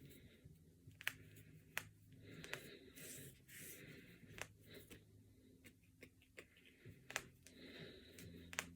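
Knuckles and finger joints cracking: a series of sharp, separate pops, about half a dozen clear ones with fainter ones between, spaced irregularly.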